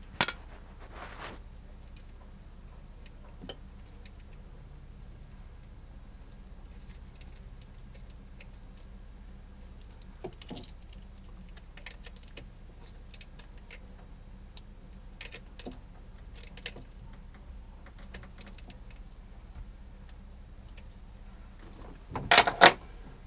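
Scattered light clinks and taps of hand tools and metal parts being worked on a marine generator's engine. There is a sharp knock just after the start and a louder quick flurry of knocks near the end.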